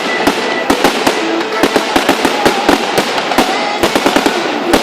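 Aerial fireworks going off in a rapid, irregular series of sharp bangs and crackles, several a second.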